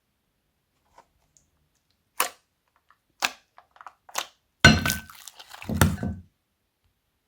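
A series of sharp cracks: three single snaps about a second apart, then two louder crackling crunches near the end.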